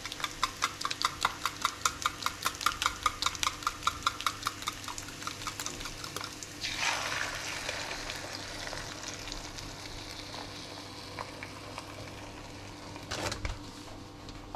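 A wire whisk beating eggs in a steel bowl, clinking about five times a second. About six seconds in, the beaten egg hits the hot frying pan with a loud sizzle that settles into steady frying, and there is a brief bump near the end.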